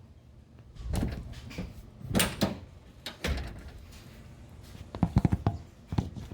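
Handling noises of hardware and parts being picked up and set down: a few separate knocks and clatters, with a quick cluster of them near the end.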